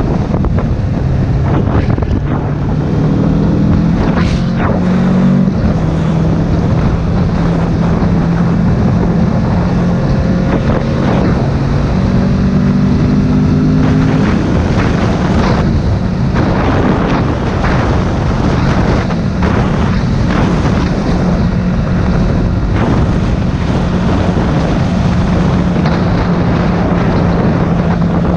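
Motorcycle riding at speed, its engine note stepping up and down through the first half and then holding steady, under heavy wind buffeting on the microphone.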